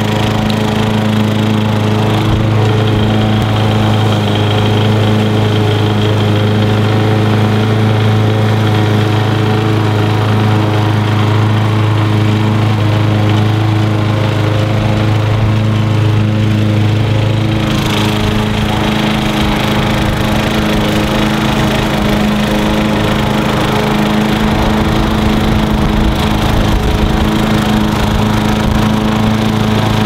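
Small gasoline lawn mower engine running steadily at a constant speed while the remote-controlled mower cuts grass.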